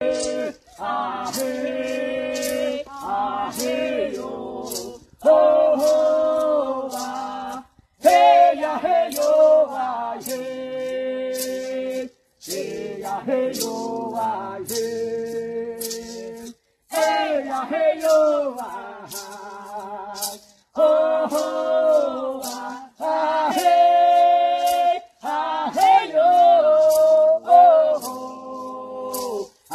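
A Kariri-Xocó prayer chant: voices singing a repeating melody in phrases of a few seconds with short breaks, over a rattle shaken in a steady beat.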